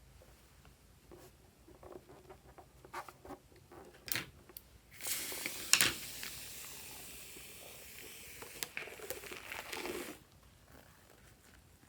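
Light clicks and crinkling handling sounds, then a sudden steady hiss with a sharp click in it, lasting about five seconds, slowly fading and then cutting off.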